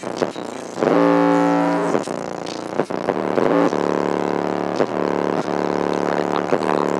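Bass-heavy rap music played loud through a subwoofer system, distorted on the microphone, with a steady beat.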